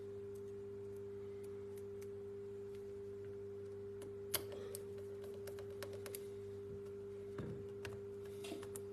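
Steady low hum with scattered faint clicks and taps of small parts and tools being handled on a laptop's screen assembly; one sharper click comes about four seconds in.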